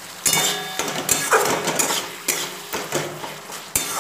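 A flat metal spatula (khunti) scraping and clinking against a metal kadai while stirring a thick frying tomato-spice masala. The strokes come in quick repeats, about two to three a second.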